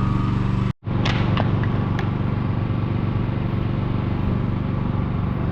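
An engine running steadily at a low, even speed, cut off by a brief dropout just under a second in and followed by a few sharp clicks or knocks.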